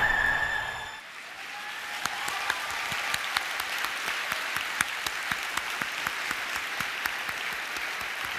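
A music track ends in the first second, then a large audience applauds with many separate claps, the clapping starting about two seconds in and holding steady.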